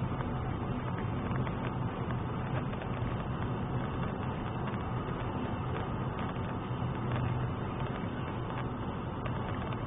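Car driving at highway speed, heard from inside the cabin: a steady low engine hum under an even rush of tyre and road noise.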